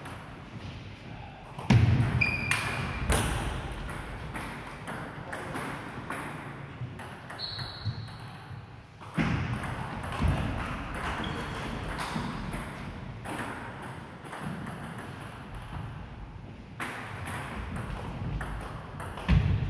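Table tennis ball clicking off bats and the table in quick rallies. A few louder thuds cut in, the loudest about two seconds in.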